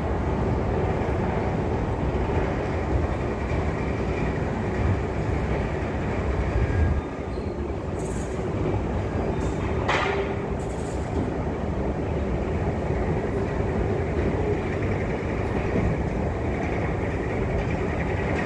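Metro station ambience: a steady low rumble that eases a little about seven seconds in, with one short knock about ten seconds in.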